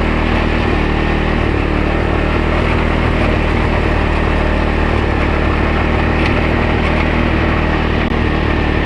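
Wolf Garten Cart garden tractor's engine running at a steady speed.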